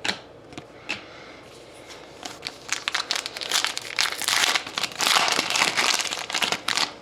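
A trading-card pack wrapper crinkling and being handled, with a couple of light clicks from card handling in the first second, then a dense run of crinkling from about two seconds in, loudest in the second half.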